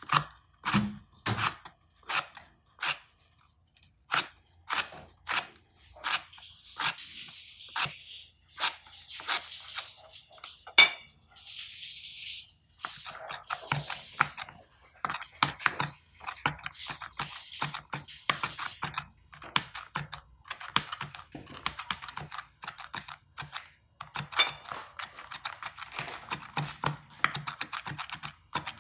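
Chef's knife chopping lemongrass on a plastic cutting board: spaced, sharp knocks of the blade on the board at first, crunchy slicing through the fibrous stalks, then rapid mincing strokes from about halfway.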